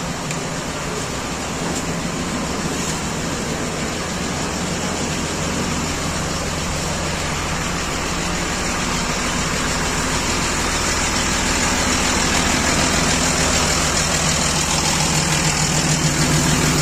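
A bus's diesel engine idling steadily, gradually getting louder.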